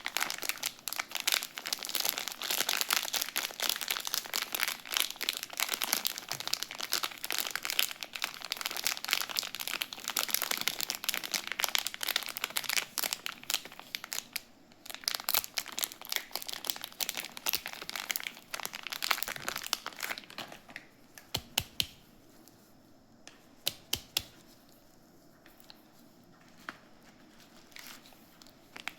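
Soap packaging crinkling and tearing as it is unwrapped by hand: a dense run of crackles that thins out about two thirds of the way through to a few scattered clicks and taps.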